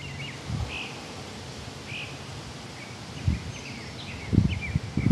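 Small birds chirping in short, scattered calls, with a few low rumbles on the microphone in the second half.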